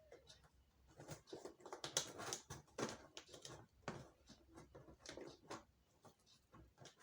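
Cardboard TV box being handled and opened: irregular scraping, rustling and light knocks, loudest about two seconds in.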